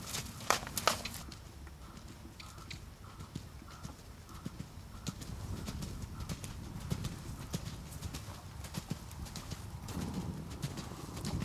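Hoofbeats of a ridden horse on a soft dirt arena, trotting and then cantering, in a steady rhythm of muffled footfalls. A few sharp clicks come in the first second.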